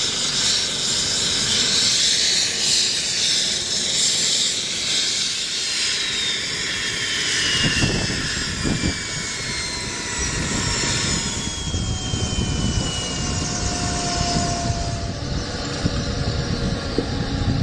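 Eurocopter EC155B's twin turboshaft engines spooling down at engine shutdown, their turbine whine falling steadily in pitch as the main rotor slows. A low rumble comes up about halfway through.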